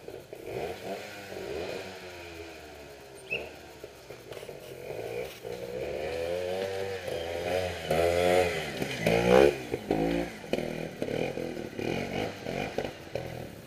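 Trials motorcycle engine revving up and down in repeated throttle blips, loudest about nine seconds in.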